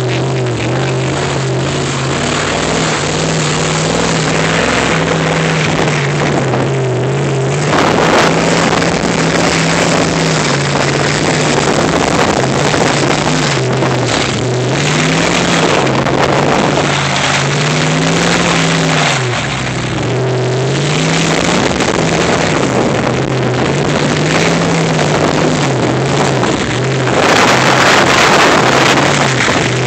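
A two-wheel-drive vehicle's engine driving off-road, its pitch rising and falling repeatedly as the throttle comes on and off, over a constant rush of wind and rough-ground noise. It gets louder about a quarter of the way in and again near the end.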